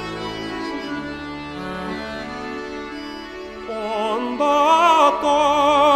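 Background music: sustained instrumental chords, then a solo singer with heavy vibrato comes in about two-thirds of the way through and is louder than the backing.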